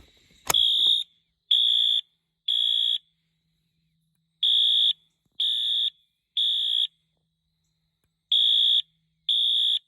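Wheelock MT-24-LSM fire alarm horn on low volume, sounding a loud code-3 temporal pattern: half-second blasts in threes with a pause between groups (three blasts, a pause, three blasts, a pause, then two more). It starts with a sharp click about half a second in.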